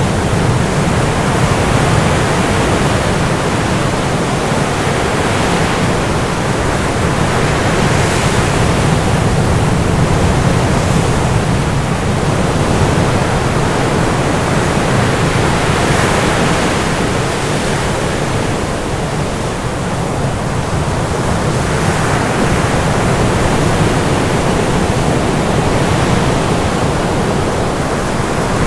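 Loud, steady rushing noise with no distinct events, swelling and easing slowly, with a slight dip in loudness about two-thirds of the way through.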